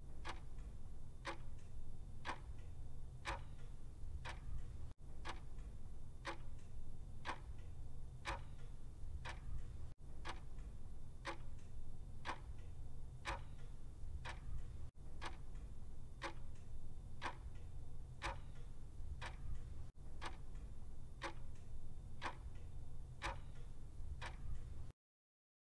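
Clock-style ticking, the kind of countdown timer effect that runs while a quiz question is on screen. Sharp ticks come at an even pace, more than one a second, over a low steady hum, with a short break every five seconds.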